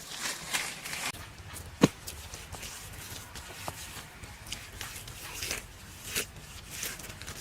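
Irregular rustling and shuffling with scattered light clicks, and one sharp knock a little under two seconds in.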